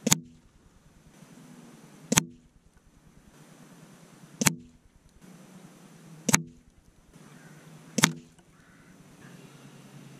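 Five .177 air rifle shots heard from the target end, about two seconds apart. Each is a sharp crack of a pellet striking the target board, followed by a brief low ring.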